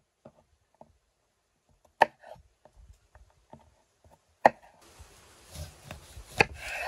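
Kitchen knife chopping green chili peppers on a wooden cutting board: scattered sharp knocks of the blade striking the board, three of them much louder and about two seconds apart. In the second half a faint steady hiss comes in, and the last loud knock falls as the knife goes through a lemon.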